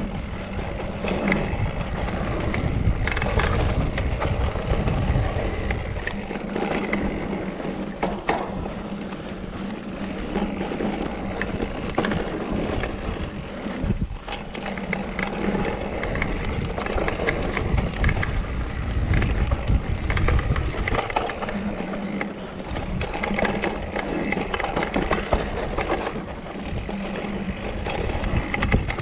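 Mountain bike rolling fast over a dry dirt singletrack: tyres crunching over loose dirt and small rocks, with the bike rattling and clicking over the bumps. Gusts of wind rumble on the microphone now and then.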